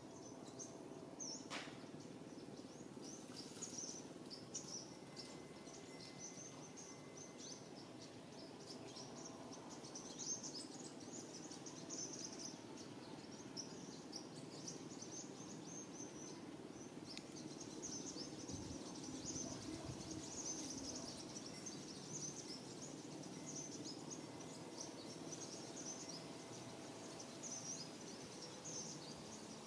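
Faint outdoor ambience: a steady background hum under constant high-pitched chirping and trilling from small birds or insects in the trees.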